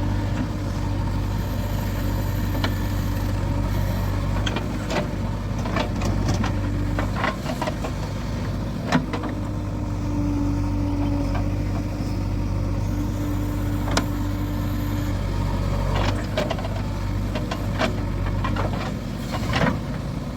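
Diesel engine of a JCB 3DX backhoe loader running steadily, with a higher steady whine that drops out twice. Short knocks and clanks are scattered throughout.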